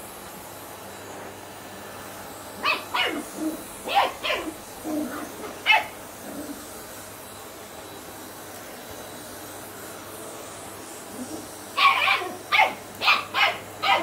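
A Shetland sheepdog puppy, about ten weeks old, barking at a vacuum cleaner it dislikes. The high, sharp puppy barks come in two flurries: a scattered handful a few seconds in, then a quick run of about seven near the end.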